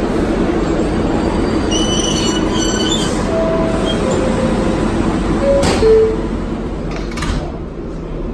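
R142A subway train standing at the platform with a steady rumble and hum and a few short squeaky tones. A couple of knocks come about six and seven seconds in as the doors close, after which the sound turns quieter and duller from inside the car.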